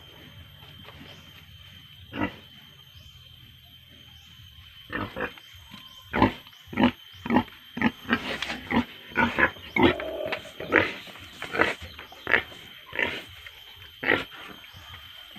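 Boar grunting in a run of short, sharp grunts, about one or two a second, starting about five seconds in and stopping near the end.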